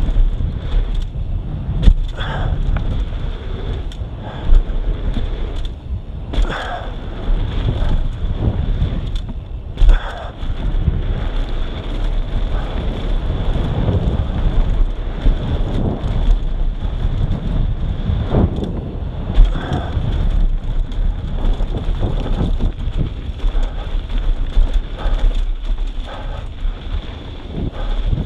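Mountain bike ridden fast down a dirt downhill trail, heard from a rider-mounted camera: wind buffeting the microphone over the crunch of tyres on packed dirt and the bike rattling. Sharp knocks come now and then, the loudest about two seconds in, around ten seconds in and near twenty seconds in, as the bike lands off jumps and hits bumps.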